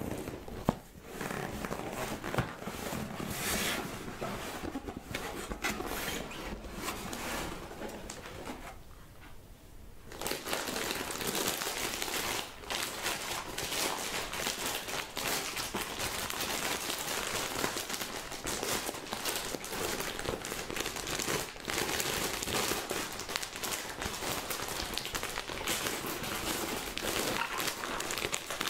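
Packaging crinkling and rustling as a parcel is unpacked by hand, with a brief lull about nine seconds in.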